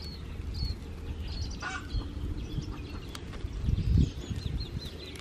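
Dry toetoe grass tinder catching fire, with a few soft crackles. A low rumble swells about four seconds in, and small birds chirp in the background.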